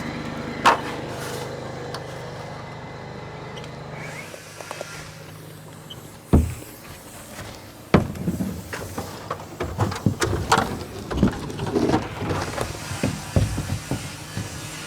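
A steady motor hum that cuts off about four seconds in, followed by scattered knocks, then frequent clattering knocks from building work.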